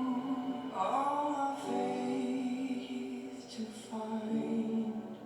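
Music with a singing voice holding long, slow notes.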